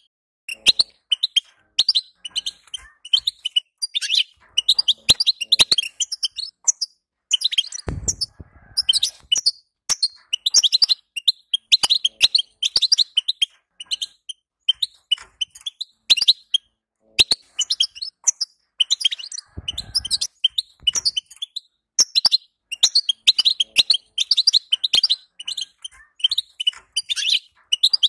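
European goldfinch twittering: fast runs of high chirps and trills with short pauses between them. A brief low bump comes about 8 seconds in and again near 20 seconds.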